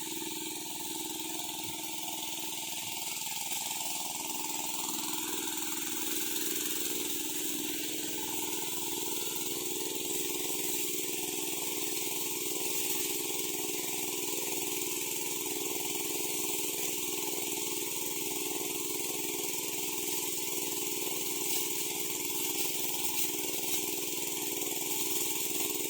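Engine of a Sanchin MS30 power sprayer running steadily at constant speed while it pumps spray, its pitch shifting slightly about five seconds in.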